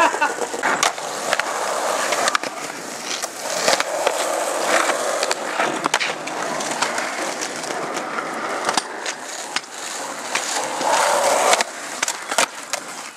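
Skateboard wheels rolling on rough asphalt, broken by sharp clacks of the board from pops, landings and a slide along a ramp's edge.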